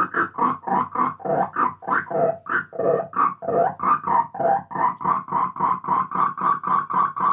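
Electronic pulsing tone run through an MXR Carbon Copy analog delay, repeating evenly about three to four times a second. The pitch of the pulses wanders in the middle, then settles on one higher note and quickens slightly near the end.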